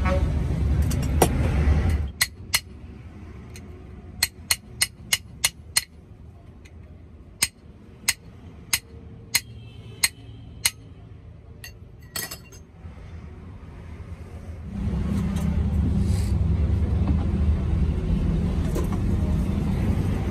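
About fifteen sharp metallic clicks and clinks, several coming in quick runs, as metal taps on the steel bottle jack. A low vehicle engine rumble starts about 15 seconds in and carries on to the end.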